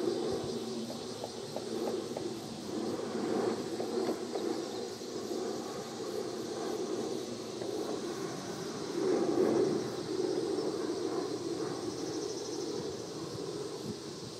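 Distant, steady rumble of a Boeing 777 jet airliner passing high overhead, swelling briefly about two-thirds of the way through, with insects chirring steadily behind it.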